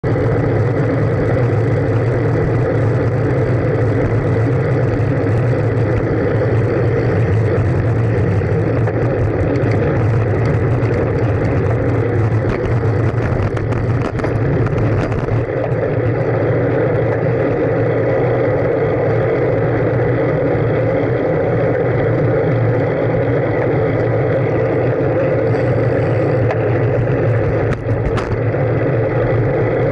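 Steady wind and road rumble on a camera mounted on a moving bicycle, with a few faint clicks.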